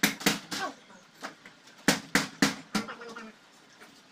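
Sharp knocks from a screen door frame being pushed and tapped into a doorway: three quick knocks at the start, then four more about two seconds in.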